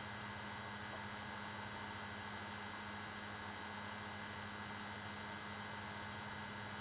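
Steady low electrical hum under a constant hiss: room tone.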